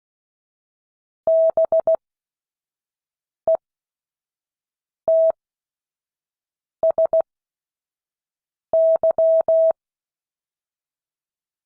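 Morse code practice tone: a single steady beep keyed on and off in short dots and longer dashes, letters sent quickly with long pauses between them. The letters spell B-E-T-S-Y, a name in a copying exercise.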